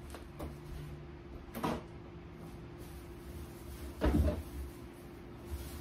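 Refrigerator door being opened and things handled inside: a few short knocks and rustles, the loudest about four seconds in, over a steady low hum.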